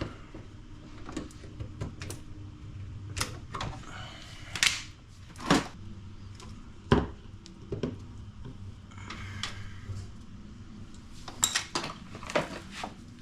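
Irregular sharp clicks and clacks of small wires, tools and clips being handled while wires are trimmed and fitted to clips, with louder snaps about five and seven seconds in and a cluster near the end.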